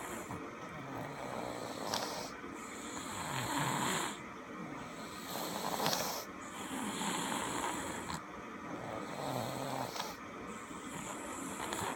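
A man snoring in his sleep, with a rasping, buzzing snore on each breath that comes about every two seconds.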